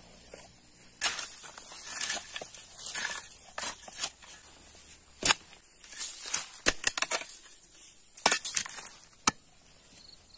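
Steel spade chopping and scraping into stony soil, with dirt thrown aside. The strikes come in an irregular string, the sharpest about five, seven, eight and nine seconds in.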